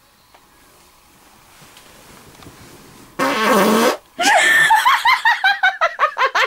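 A person breaking wind: one loud fart lasting just under a second, about three seconds in, followed at once by hard, rapid laughter.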